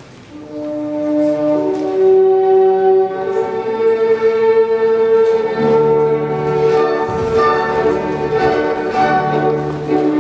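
Classical orchestral music with long held brass and string notes, starting about half a second in and swelling over the first two seconds.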